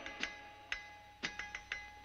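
Quiet cartoon background music: a handful of short, light notes that die away quickly, over a faint held tone.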